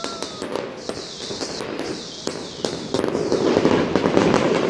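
Fireworks going off: a string of sharp bangs and pops over the hiss and crackle of gold crackling stars. The crackle thickens and grows louder about three seconds in.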